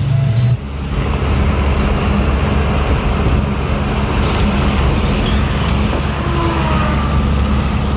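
Container lorry cruising on a highway, heard from inside the cab: a steady engine drone with tyre and road noise.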